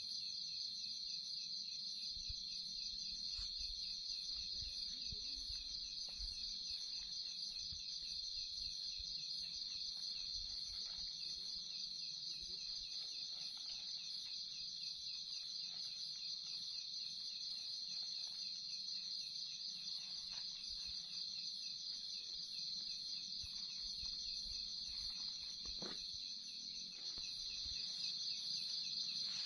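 Night-time insect chorus: a steady, shrill, pulsing trill that does not let up. Faint rustling and a sharp click near the end come from camping gear being handled.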